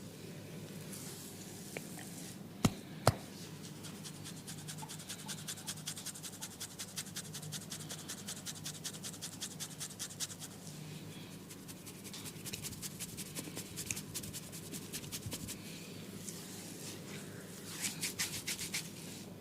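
Hands massaging an oiled scalp with quick, regular rubbing strokes in long runs. Two sharp cracks come about three seconds in.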